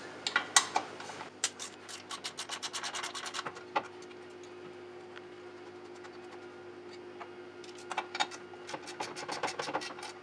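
Ratchet wrench clicking in quick runs, about eight clicks a second, as bolts are undone on the intake manifold of an Opel Z16XEP engine, with a few separate metallic knocks. A faint steady hum sets in about four seconds in.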